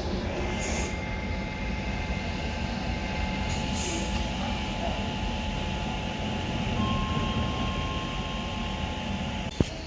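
Train running on the rails: a steady low rumble with thin, steady high tones over it. A single sharp click comes near the end.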